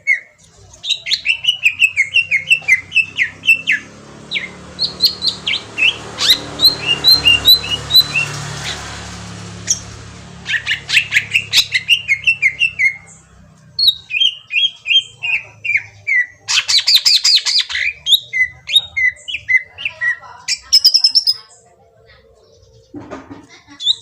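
Green leafbird (cucak ijo) singing in fast runs of sharp, repeated chirps and short falling notes, with a short lull near the end.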